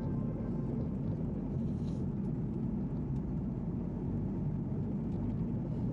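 Steady low cabin noise of an Airbus A330 airliner in cruise, heard inside the passenger cabin: an even rush of engine and airflow noise.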